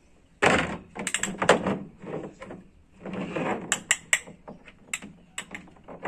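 Hard plastic toy excavator clattering as a baby handles it against a plastic truck-bed liner: rough scrapes and rattles in the first half, then a quick run of sharp clicks and knocks.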